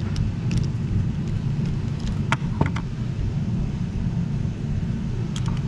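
A few light clicks and taps of a charge tube, its hose clamps and a screwdriver being handled on a wooden workbench, over a steady low background rumble.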